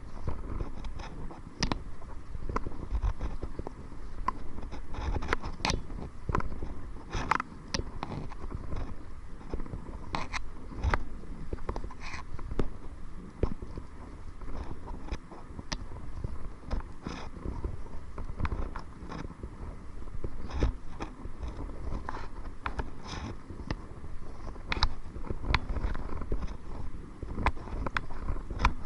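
Kayak paddling into the wind: irregular splashes, drips and knocks of the paddle and water against the kayak, over a steady low rumble of wind on the microphone.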